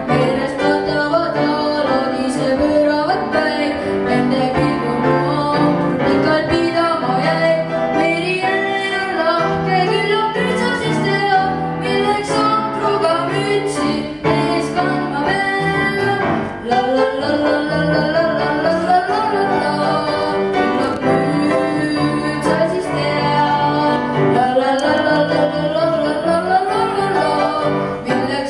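A boy singing solo with grand piano accompaniment, his voice carrying a continuous wavering melody over sustained piano notes.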